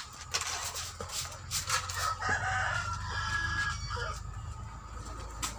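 A rooster crows once, about two seconds in, after a few sharp knocks, over a steady low hum.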